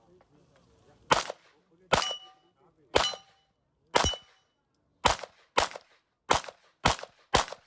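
Handgun shots fired in a practical-shooting stage: nine sharp shots, about one a second at first, then quicker, about half a second apart, in the second half. Three of the shots are followed by a short metallic ring, typical of hit steel targets.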